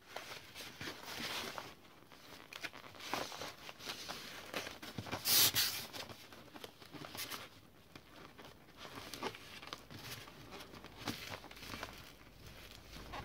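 Plastic vapour-barrier foil rustling and crinkling as hands fold and smooth it over polystyrene, with a louder crackle about five seconds in.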